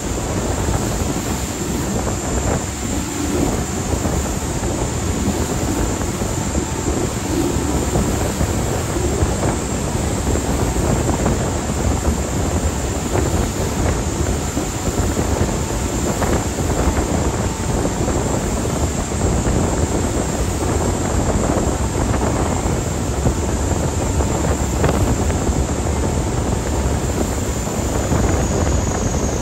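Ferry underway at speed: a steady engine drone mixed with rushing water and wind on the microphone, with a thin high whine held steady that sinks slightly near the end.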